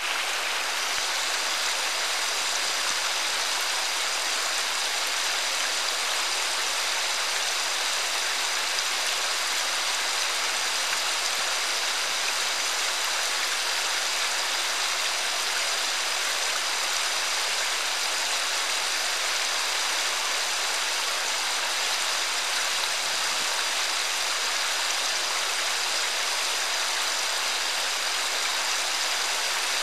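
A creek rushing over rocks: a steady, even rush of water.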